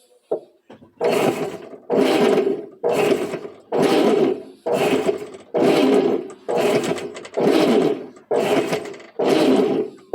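Top-loading washing machine agitating on test after a new agitator ratchet (catraca) and tightened drive belt: the motor and transmission drive the agitator back and forth in strong strokes, a little faster than one per second, starting about a second in.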